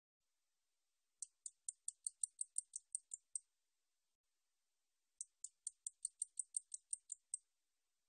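Song of the 날베짱이 (nalbejjangi) katydid: two bouts of about a dozen sharp, high-pitched ticks, roughly five a second, each bout lasting a little over two seconds. The first starts about a second in and the second about five seconds in.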